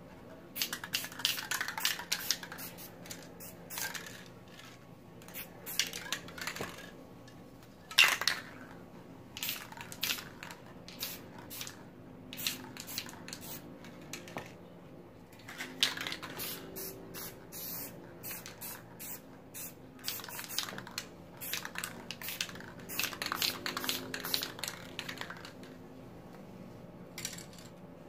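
Aerosol spray-paint cans sprayed in short bursts, the hiss starting and stopping again and again. A few sharp clicks and knocks come between the bursts, the loudest about eight seconds in.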